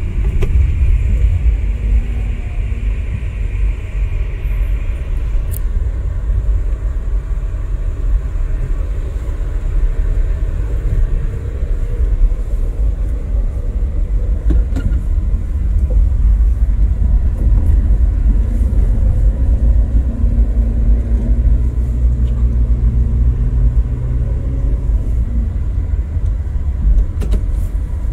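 Car driving slowly on a narrow rough lane, heard from inside the cabin: a steady low rumble of engine and tyres, with a higher hiss that stops about five seconds in.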